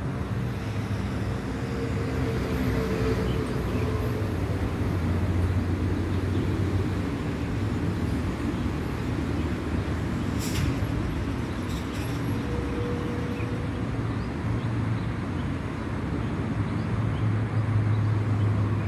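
Taiwan Railways PP push-pull Tze-Chiang express train passing over a steel railway bridge: a steady rumble with a low hum, and a few sharp clicks about ten seconds in.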